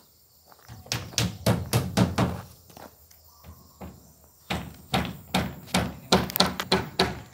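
A hammer driving nails into plywood wall sheeting on a timber frame: two runs of quick blows, about four a second, with a short pause between them.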